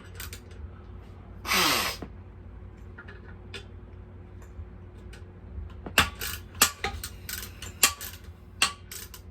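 Wrench clinking against a nut and bolt on a small mini bike engine: a series of sharp, irregular metal clicks in the second half, as the tool is fitted and turned on a nut that was spinning. A brief breathy burst of noise comes about one and a half seconds in.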